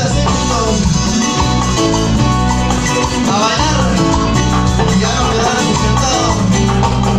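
Live cumbia band playing a Latin dance tune, with electric guitar over drums and percussion.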